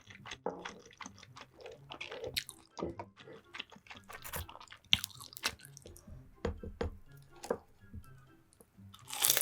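Close-miked chewing and wet mouth sounds of eating, with irregular smacks and clicks and a louder bite near the end.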